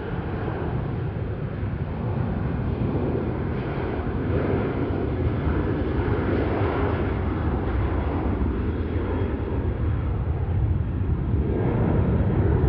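A departing jet airliner's engines at takeoff thrust: a steady, deep rumble that grows slowly louder.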